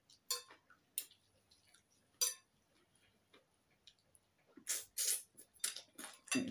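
A metal fork and spoon clink against a ceramic bowl: three sharp, separate clinks in the first couple of seconds. About five seconds in there is a short cluster of eating sounds as a mouthful is taken.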